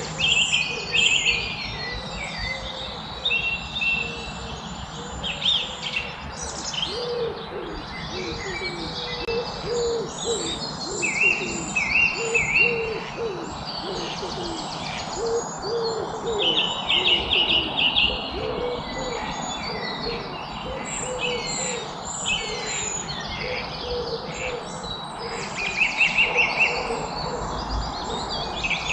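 Several wild birds singing and chirping over one another, with quick trills and repeated whistled phrases. Under them runs a steady stream of short, low repeated calls.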